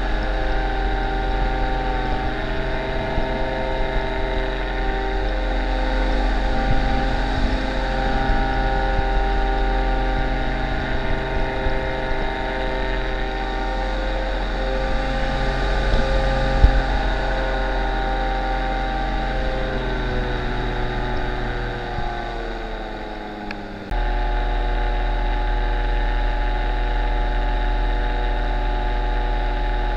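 Paramotor engine and propeller running steadily in flight, with some wind on the microphone. Near the end the engine note slides down and gets quieter, then it jumps suddenly back to the same steady running.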